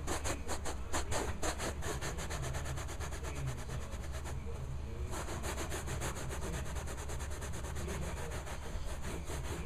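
Stiff-bristled hand brush scrubbing carpet pile in rapid back-and-forth strokes, with a short pause about halfway.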